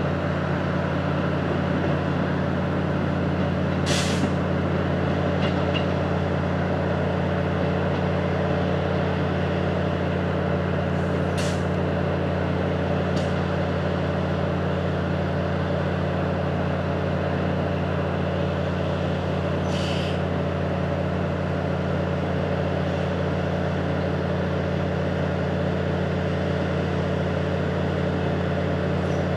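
Diesel multiple-unit train idling with a steady low hum. Three short hisses of released air come about eight seconds apart.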